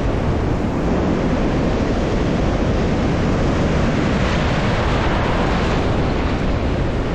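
Shallow breaking surf rushing and foaming over the sand in a steady wash, with wind rumbling on the microphone.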